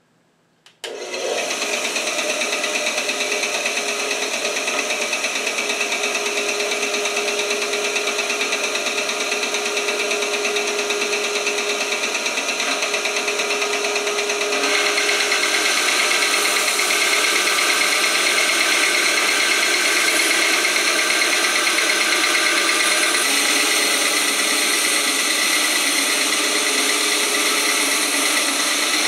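A 10-inch Rikon benchtop bandsaw starts about a second in and runs steadily. About halfway through the blade begins cutting into a slab of olive wood, resawing it into strips, and the sound grows louder and brighter as the cut goes on.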